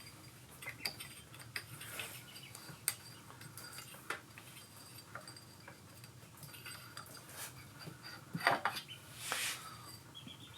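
Light clinks and clicks of metal clutch parts being handled as the clutch center and one-way clutch come off a Honda VT700C engine, with a louder clatter and a short scrape near the end.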